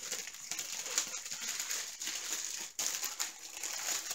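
Thin clear plastic bag crinkling and crackling in the hands as a diamond painting toolkit is pushed back into it, with a brief break partway through.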